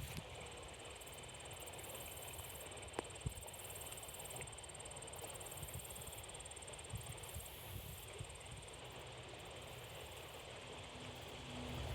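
Insects trilling in one steady, high, continuous note that breaks off briefly about seven and a half seconds in, over faint low background rumble, with two soft clicks about three seconds in.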